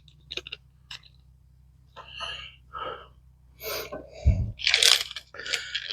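Crunching and rustling of carburettor rebuild-kit packaging as small parts are rummaged for, in a run of short bursts with a few light clicks. A dull bump a little past four seconds in.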